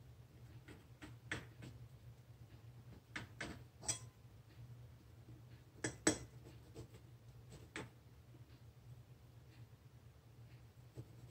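A table knife and fingers tapping and clicking lightly against a ceramic plate as bread is cut and the pieces are handled: scattered sharp clicks, most of them in the first eight seconds, fewer after.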